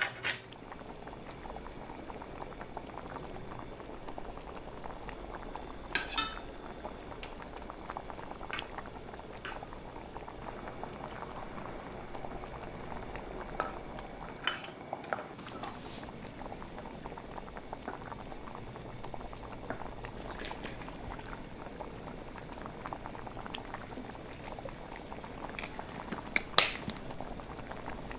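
A pot of seafood broth boiling on the stove, bubbling steadily. A utensil clinks against the pot a few times.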